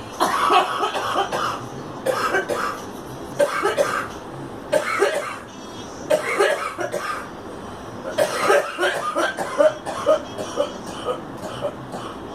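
A girl coughing repeatedly, in bouts of several quick coughs each, with short pauses between the bouts.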